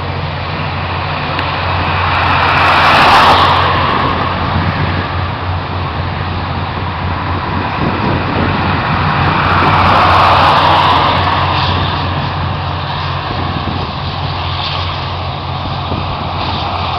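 GO Transit train with EMD F59PH diesel locomotives: a steady low engine drone under a rushing train noise that swells louder twice, about three seconds in and again around ten seconds, and builds again near the end.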